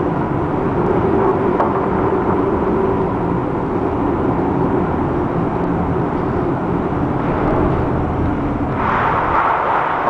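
Steady rumble of a ship working through a storm, heard from inside the bridge: wind and sea noise with a low machinery hum. About nine seconds in, a louder hissing wash comes in as a breaking sea throws spray over the bow and across the bridge windows.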